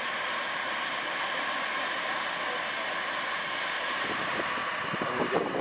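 Steam hissing steadily from the Kitson & Co 0-6-0T tank locomotive A No.5 while in steam for its boiler steam test.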